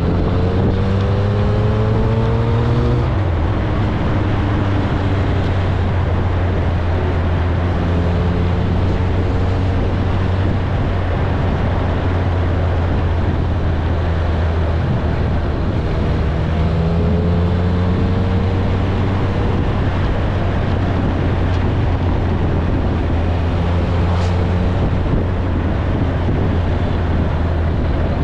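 Kawasaki ZRX1100's inline-four engine running steadily at cruising speed, its pitch rising gently a few times as it picks up speed. Wind and road noise rush over the microphone throughout.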